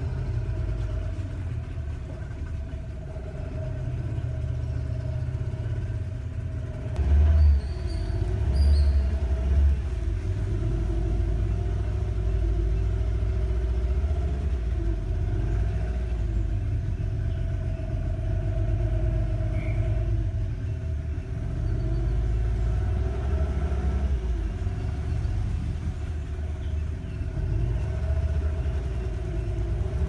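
Small boat's outboard motor running slowly with a steady low hum. Louder low surges come and go about seven to ten seconds in.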